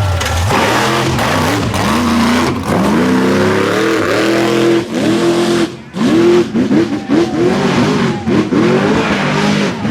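Mega truck's engine revving hard in repeated rising surges, the pitch climbing and dropping again and again, with a brief dip about six seconds in.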